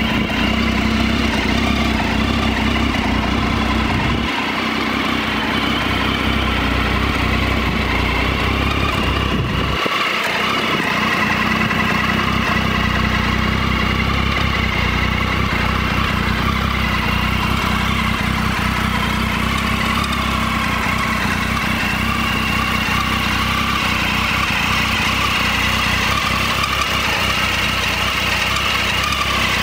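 Triumph Tiger 800 XRT's inline three-cylinder engine idling steadily, with the low rumble dipping briefly twice.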